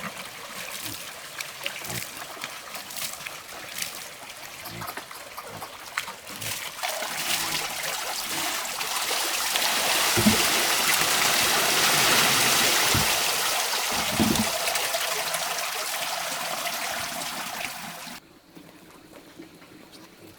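Water running and trickling. It grows louder over several seconds, then stops suddenly near the end.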